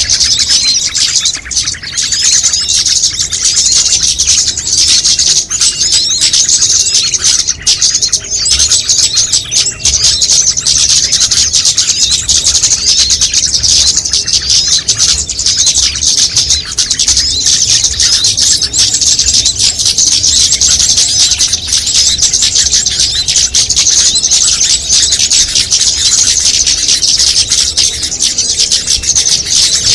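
Dense chorus of many small songbirds chirping and calling at once, a bird-lure call mix, with rapid high-pitched chirps running without a break.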